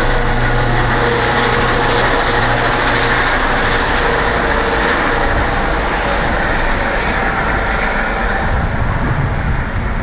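Ambulance helicopter flying overhead, its engine and rotor giving a steady noise with a few steady tones, getting a little quieter near the end as it moves away.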